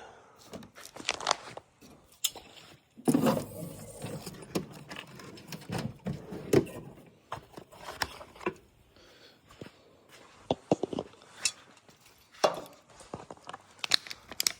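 Scattered clicks, clinks and rattles of hand tools being handled and picked through, with a longer noisy stretch about three seconds in.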